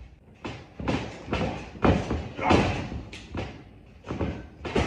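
Wrestlers' bodies and feet thumping on a wrestling ring's mat: a string of about eight to ten thuds at uneven spacing, some louder than others.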